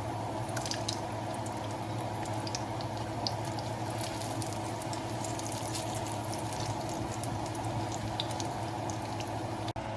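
Food shallow-frying in hot vegetable oil in a pan, a steady sizzle with scattered crackles and pops. A steady low hum runs underneath.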